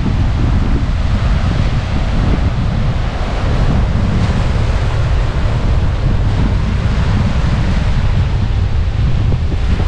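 Loud wind-driven waves breaking on a sandy lakeshore, with strong wind buffeting the microphone.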